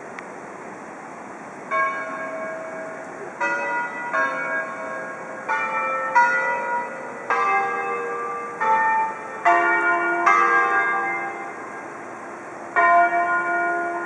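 Church bells ringing in a tower: about ten uneven strikes of several bells at different pitches, each ringing on, over the steady noise of the river.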